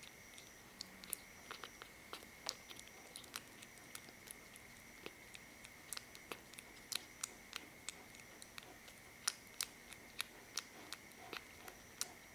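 Kitten suckling and lapping at the tip of a feeding syringe: a faint, irregular run of small wet mouth clicks, a few a second, with a hungry kitten's eager feeding rhythm.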